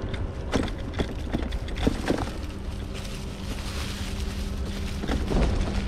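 Mountain bike rolling down a leaf-covered dirt trail: a steady low rumble of tyres and wind on the microphone, with a run of short knocks and rattles from the bike over bumps in the first two seconds and again near the end.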